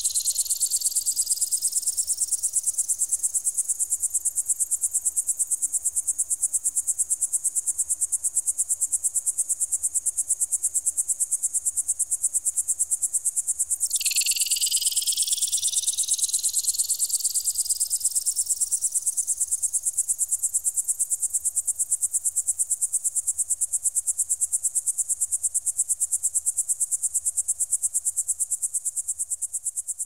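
Electronic bird-repeller sound: a rapidly pulsing, high-pitched tone with several tones sweeping slowly upward together. It drops back to a lower pitch about halfway through and sweeps up again, then fades near the end.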